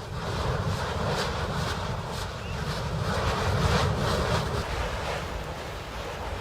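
Steady rushing, rumbling noise with wind buffeting the microphone.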